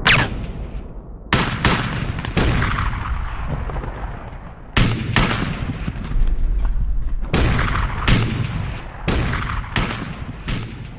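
Gunfight on a film soundtrack: a long, irregular run of loud gunshots, some single and some in quick bursts of two or three, each with a short echoing tail, over a low rumble.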